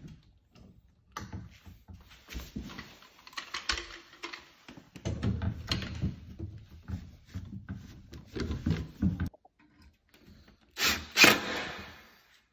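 Clicks, knocks and rattles of metal caster brackets being fitted and clamped onto the bottom edge of a door slab, in an irregular run, then a loud knock near the end.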